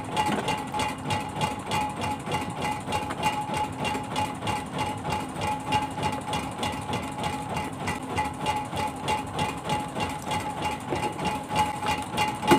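Boat engine running steadily, with an even rhythmic chugging and a steady hum over it.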